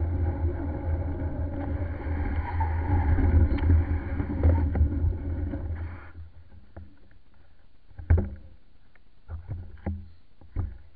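A small vehicle's motor running with a steady low hum as it travels, cutting off suddenly about six seconds in as the vehicle stops. A few short knocks and clicks follow.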